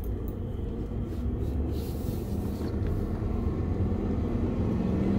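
The V8 of a 2001 BMW 540i with a six-speed manual, heard inside the cabin as the car pulls away, with the engine and road rumble growing slowly louder.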